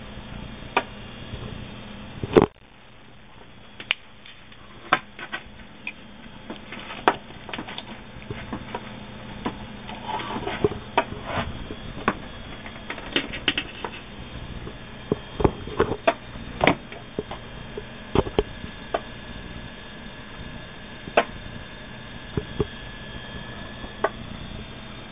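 Irregular clicks and taps scattered over a steady low electrical hum, with one sharp knock about two and a half seconds in.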